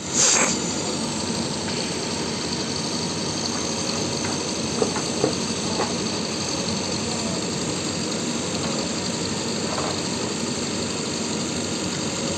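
JCB earthmover's diesel engine running steadily, with a brief louder surge at the start and a few light metallic clinks about five seconds in.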